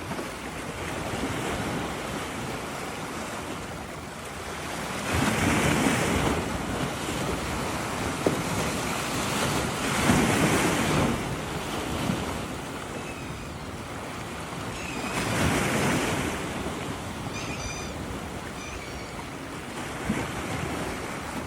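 Sea surf: waves breaking in three big swells about five seconds apart over a steady wash, with wind. Several short, high seagull calls come between the second and third waves and just after the third.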